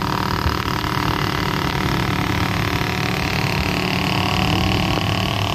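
Motorcycle riding along a wet road: steady engine running under continuous road noise.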